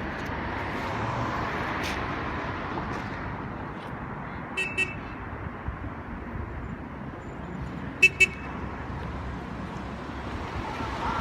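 Steady road traffic noise, with two quick double toots of a vehicle horn, one about halfway through and another a few seconds later.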